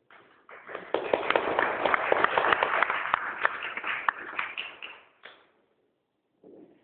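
A small audience clapping, many hand claps at once, dying away about five seconds in.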